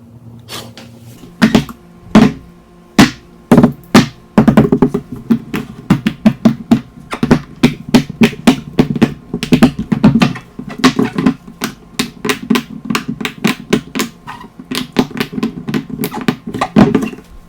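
Fidget toys being pressed and handled: quick, uneven pops and taps, several a second, starting about a second in.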